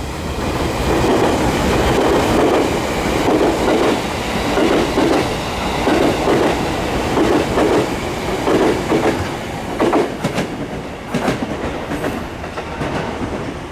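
JR Kyushu 787 series limited express electric train passing through a station at speed without stopping. Its wheels click over the rail joints in a steady rhythm of paired beats, about one pair a second. The sound fades near the end as the train moves away.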